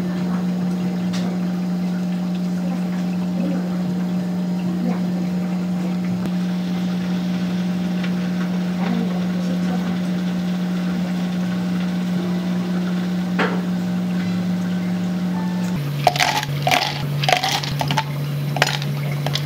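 Steady low machine hum in a café kitchen, dropping slightly in pitch about sixteen seconds in. Several sharp clicks and clinks of handled utensils or containers come over it near the end.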